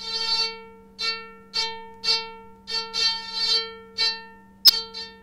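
Karplus-Strong string synthesis from a Pure Data patch, excited by band-pass-filtered white noise. A single bright, string-like note swells and fades about nine times as the noise level is played. A steady low hum runs beneath it, and a sharp click comes near the end.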